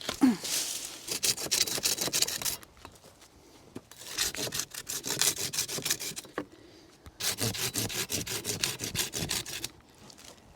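Hand saw cutting through a wooden branch in three bouts of rapid back-and-forth strokes, with short pauses between them.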